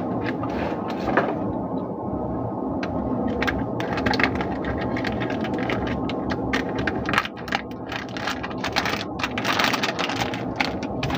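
Crinkling and rustling of a Lifebuoy soap bar's plastic wrapper handled in the hands as the bar is pulled out of it, with a steady low hum underneath. The crackles start about a third of the way in and come thick and fast in the second half.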